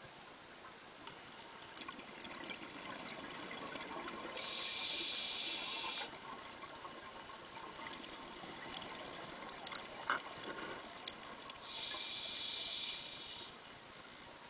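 Scuba diver's regulator breathing heard underwater: two rushes of exhaled bubbles, each about two seconds long, one a few seconds in and one near the end. A single sharp knock about ten seconds in.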